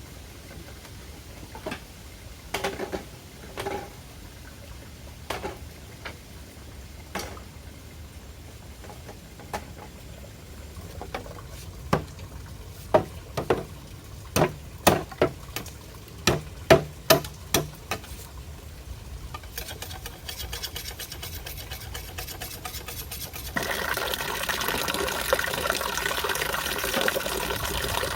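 A series of sharp knocks, scattered at first, then coming thick and fast between about eleven and eighteen seconds in. Near the end a steady rush of flowing water starts suddenly and becomes the loudest sound.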